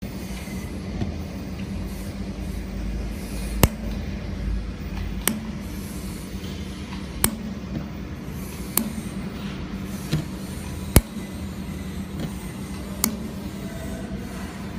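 Handheld laser welding machine running with a steady hum, and six sharp clicks a couple of seconds apart.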